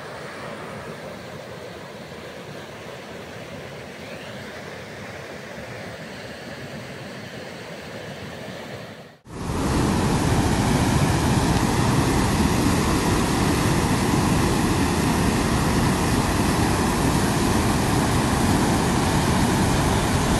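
Steady rush of a swollen, muddy river in flood. About nine seconds in it cuts off abruptly and comes back as a much louder, rougher rush of floodwater.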